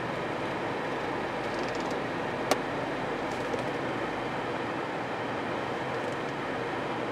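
Steady rush of a 2011 Honda CR-V's air-conditioning blower pushing air out of the dash vents, heard inside the cabin with the engine running and the A/C on and cooling. One sharp click about two and a half seconds in.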